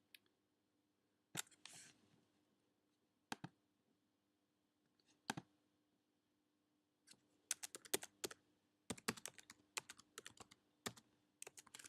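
Computer keyboard and mouse clicks: three single clicks a couple of seconds apart, then a quick run of keystrokes from about seven seconds in, as in typing. A faint steady hum lies under them.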